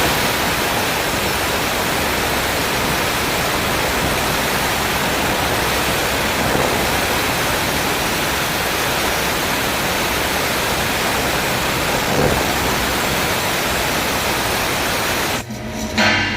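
MIG/MAG welding arc burning as a steady, even hiss that cuts off suddenly near the end.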